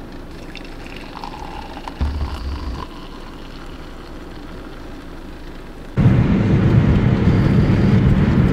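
Road and engine noise inside the cabin of a moving car on a highway, a steady rumble that cuts in suddenly about six seconds in, after a few seconds of much quieter sound.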